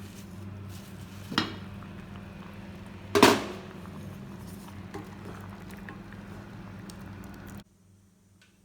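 Mustard seeds and garlic frying in hot oil for a tempering, a faint sizzle with small pops over a steady low hum, and two sharp knocks of a utensil on the pan, the second the loudest. The sound cuts off suddenly near the end.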